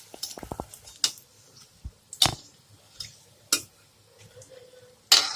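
A metal spoon clinking and knocking against a frying pan a few times, with the loudest knock near the end, while samosas are turned in oil.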